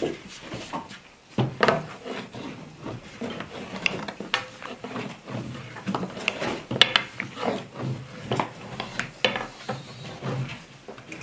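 A thin wooden rolling pin rolling and rubbing over floured dough on a wooden tabletop, with irregular knocks and taps of the pin on the board.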